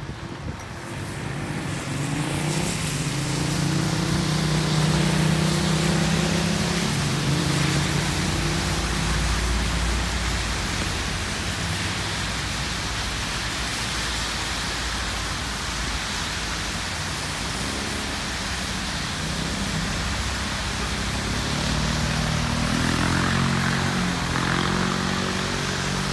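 Road traffic on a wet street: a steady hiss of tyres on wet asphalt, with the engine of a passing vehicle running loudly from about two seconds in and another rising near the end.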